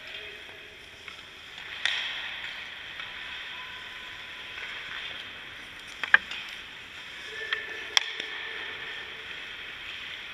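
Ice hockey practice sounds: skate blades scraping on the ice, with sharp cracks of a stick or puck, the loudest about six seconds in and another about two seconds later.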